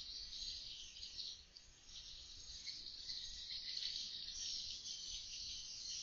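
A roosting colony of edible-nest swiftlets twittering together, a dense, continuous high-pitched chatter of many birds at once that dips briefly about a second and a half in.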